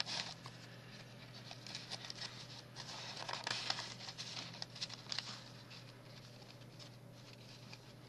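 Paper rustling with soft scattered taps and clicks as the cards and pages of a handmade paper envelope book are handled. Busiest in the middle, quieter near the end.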